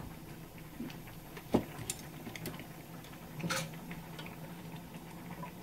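Kitchen utensil handling at the stove: a few light clicks and one sharp knock about one and a half seconds in, then a brief scrape about three and a half seconds in, as a kitchen knife is set down and a frying pan with an egg crepe is picked up and worked with chopsticks. A low steady hum runs underneath.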